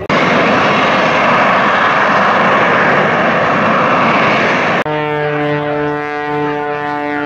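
Airshow aircraft noise: a loud, steady rushing roar of an aircraft flying over the field, then, near the end, an abrupt cut to the steady, even drone of an aircraft engine.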